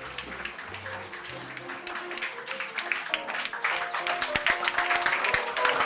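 Audience applauding over music with held notes, the clapping growing louder toward the end.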